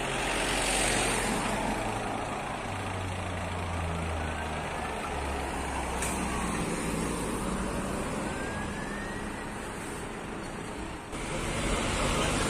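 Fire engine's diesel engine running as the truck drives up and passes close by, with tyre and road noise that swells as it goes by. The sound changes abruptly near the end.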